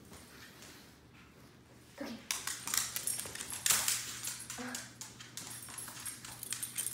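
A dog playing with a toy on a hard floor: from about two seconds in, a quick run of sharp clicks and knocks from its claws and the toy hitting the floor as it tosses and chases it.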